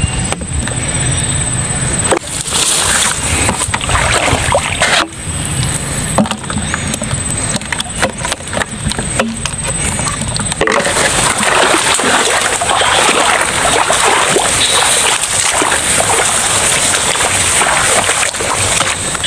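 Water splashing and sloshing as a PVC-pipe eel trap is handled in shallow marsh water beside a bucket of eels, with a few abrupt breaks. From about halfway on, a steady dense rustle as the grass is pushed through.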